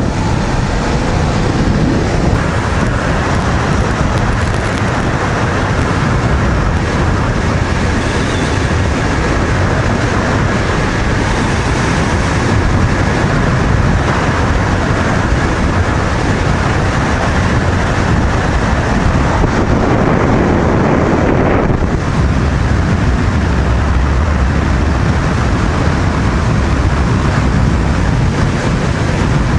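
Steady wind rush on the microphone over the engine and tyre noise of a Honda VTR250, a 250 cc V-twin motorcycle, cruising at highway speed.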